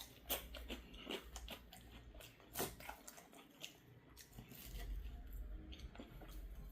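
A person chewing a bite of barbecue chicken sandwich: faint, irregular crunches and mouth clicks.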